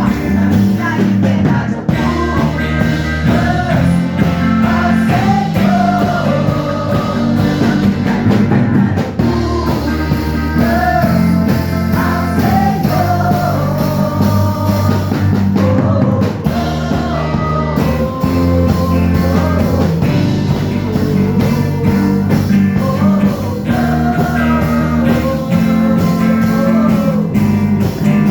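Rock-style band music with guitar, a steady bass line and a melody line that bends up and down, played without a break.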